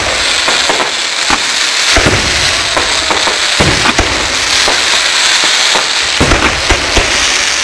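Aerial fireworks shells bursting in a display, one deep boom about every second, over a steady crackle from the burning stars.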